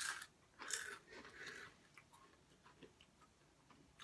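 Takis rolled tortilla chips being bitten and chewed: a few short crunches in the first second and a half, then only faint small ticks.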